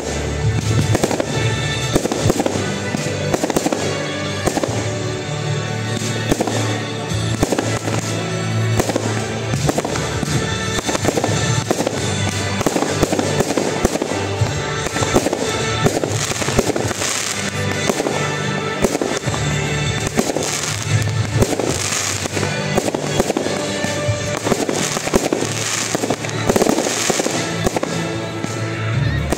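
A fireworks display: aerial shells bursting and crackling in quick succession, with music playing throughout.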